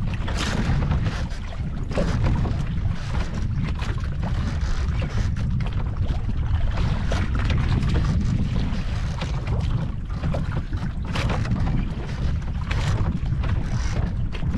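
Wind buffeting the microphone in a steady low rumble, with choppy sea water slapping and splashing against the small wooden boat's hull in frequent short surges.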